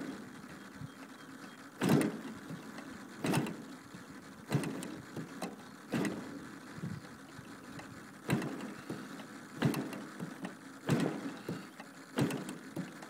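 DLE 55 single-cylinder two-stroke gas engine being cranked by repeated flips of the propeller, a short puff about every second and a half, never catching: hard starting when hot.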